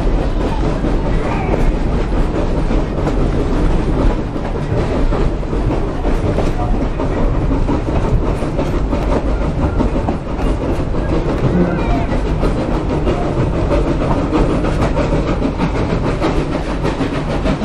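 Running noise of a moving heritage steam train's carriage heard from on board: a steady rumble, with the wheels clicking over the rail joints.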